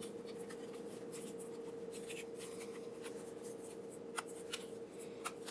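Faint rustling and scraping of a plastic quadcopter being turned over in the hands, with a few light clicks in the second half, over a steady faint hum.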